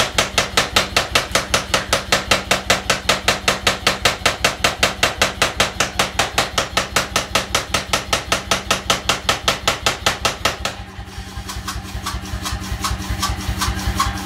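Power hammer forging a red-hot bar: rapid, even blows, about four to five a second, which stop about eleven seconds in, leaving a low running hum.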